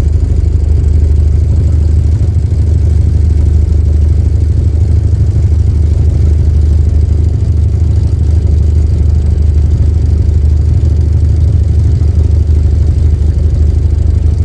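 Boat engine running steadily under way, a deep even drone.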